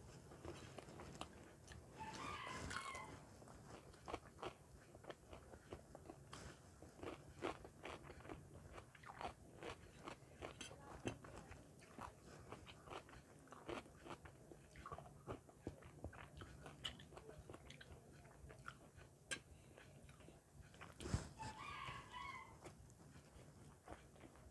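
Quiet close-up eating sounds: chewing and crunching of fried samosa and paratha, with many small mouth clicks. There are two louder crunches, about two seconds in and near the end.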